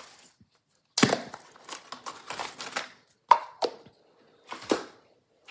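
Plastic blind-box capsule and its wrappers being handled and opened: crinkling from about a second in, then a few sharp plastic clicks and knocks.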